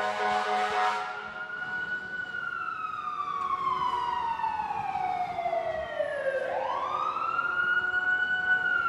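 Fire truck siren wailing: it climbs, falls slowly over about four seconds, then rises quickly again and holds high. A blast of the truck's horn is fading out in the first second.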